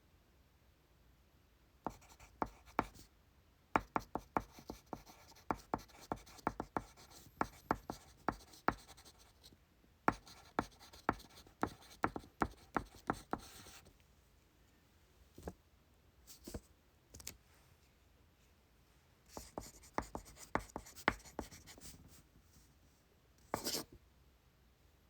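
Pencil writing on paper: quick taps and scratches in clusters, busy for about twelve seconds, then sparse, then another short run. A single short, louder burst of noise comes near the end.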